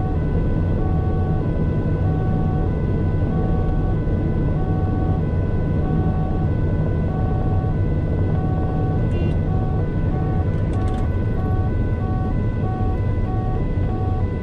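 Two-tone emergency-vehicle siren alternating between a high and a low note, heard from inside the cabin over steady engine and tyre noise; the alternation gets quicker about ten seconds in.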